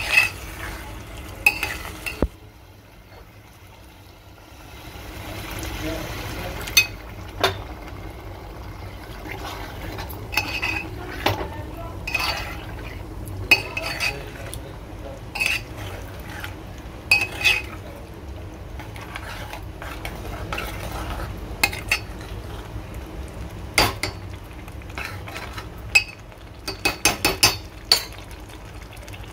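A metal spoon stirring a thick curry in a metal pot, with irregular sharp clinks as it knocks against the pot's side and a quick run of clinks near the end. A steady low hum runs underneath.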